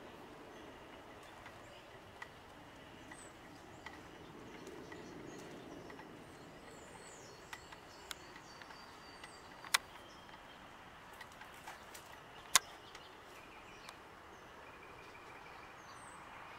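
Faint bird chirps and short high calls over a quiet outdoor background, with scattered sharp clicks; the two loudest clicks come about ten and thirteen seconds in.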